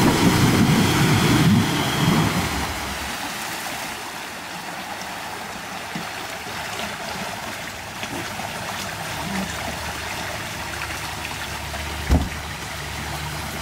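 Off-road vehicle engine running hard in a deep muddy water pit for the first few seconds, then dropping back to a low run under steady trickling and splashing water. There is one sharp knock about twelve seconds in.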